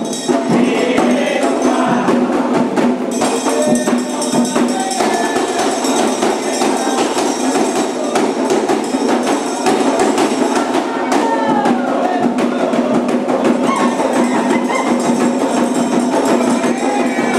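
Candomblé ritual music: continuous drumming on atabaque hand drums with a struck metal bell (agogô) keeping time, and singing voices over the percussion.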